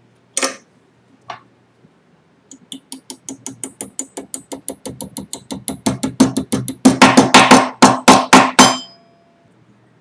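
A hammer striking a steel control-rod wire clamped in a small bench vise, a metal-on-metal ringing clink with each blow. Two single taps come first. About two and a half seconds in, a long run of blows begins, speeding up and getting louder, and it stops just before the end.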